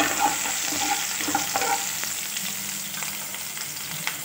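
Chopped garlic, ginger and green chillies sizzling in hot oil in a kadai, stirred with a spatula in the first seconds; the sizzle eases off a little toward the end, with one short click near the end.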